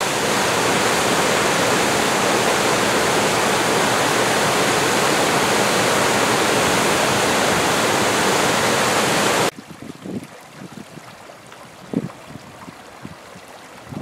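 Water pouring over a low rock weir, a loud steady rush of falling water. About two-thirds of the way through it cuts off suddenly to a much quieter small creek trickling, with a few soft low bumps.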